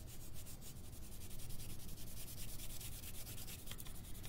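Coloured pencil shading on paper: quick back-and-forth scratchy strokes as a patch is filled in with brown.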